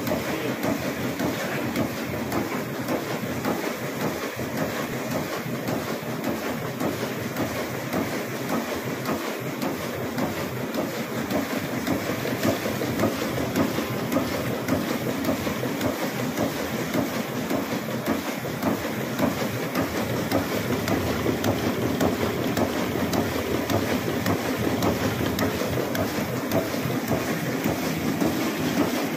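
Foil-stamping and embossing label printing press running: a steady, fast mechanical clatter.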